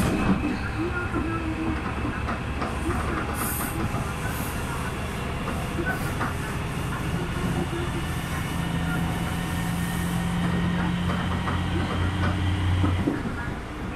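Cabin of a KiHa 200 series diesel railcar under way: the railcar's engine drone and wheels running on the rails, with scattered clicks over the track. The engine hum grows louder from about halfway through and falls away near the end.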